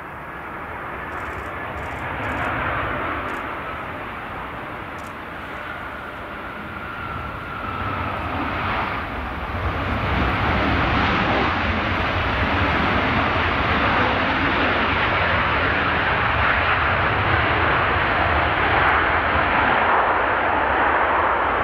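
Boeing 737-800 airliner's CFM56 turbofan engines on landing, with a thin whine slowly falling in pitch as it touches down. About ten seconds in, the engine noise grows louder and stays loud as the jet rolls out along the runway.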